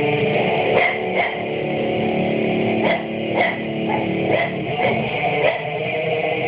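Guitar music, strummed, with several short, sharp sounds cutting in over it.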